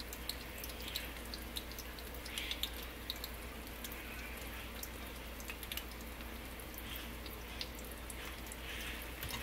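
Oil sizzling and crackling in a skillet as egg-battered green bean bundles fry, with many small pops.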